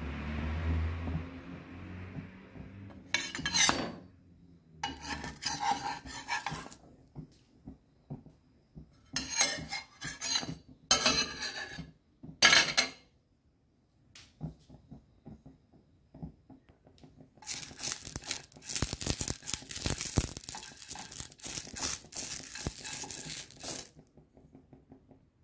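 A metal spatula scraping and sliding across a frying pan in several short strokes, then a longer stretch of dense, steady scraping and rubbing on a stainless-steel pan.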